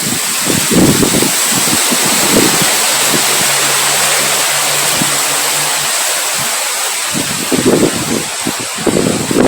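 Strong wind blowing as a loud, steady rush, with irregular low gusts buffeting the microphone. A faint low hum sits under it for a few seconds in the middle.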